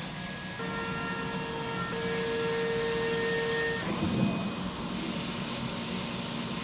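CNC vertical mill cutting the part under flood coolant: a steady hiss of spindle, coolant spray and cutting. A steady cutting whine sounds from about half a second in until nearly four seconds in, when it stops and the sound shifts.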